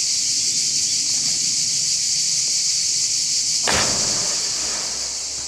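A person jumping from a rock ledge into a river: one loud splash about three and a half seconds in, over a steady high-pitched insect chorus.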